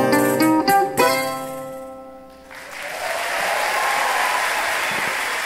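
Mandolin and acoustic guitars play the song's closing plucked notes, with a final chord struck about a second in and left to ring out and fade. About two and a half seconds in, audience applause starts and holds steady.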